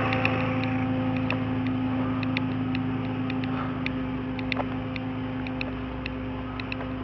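Vehicle engine idling steadily with a low drone, with scattered light ticks at irregular intervals.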